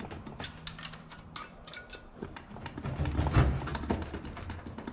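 Hand tools clicking and clinking against the metal pump assembly of a 48RE automatic transmission as it is worked at a bench. A heavier low knock comes about three and a half seconds in.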